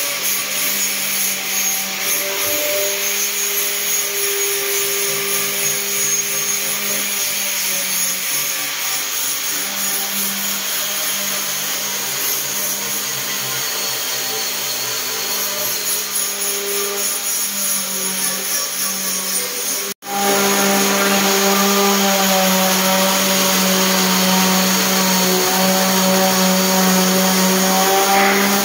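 Electric palm sander running steadily as it sands the joints of a fiber-board ceiling to level them. The sound drops out for an instant about two-thirds through, then returns slightly louder and steadier.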